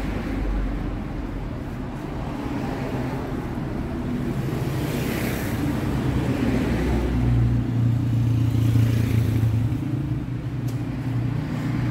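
Street traffic: a motor vehicle engine runs close by with a steady low hum, growing louder about seven seconds in, while passing cars add swells of hiss.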